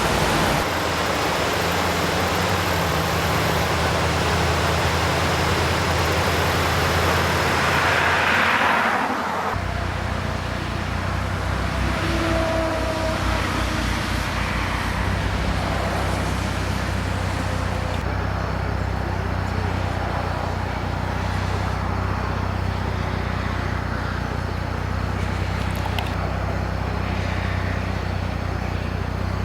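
A motor vehicle running under a loud, steady hiss of water. About nine and a half seconds in the hiss drops away abruptly, leaving a steady low engine hum with lighter water noise.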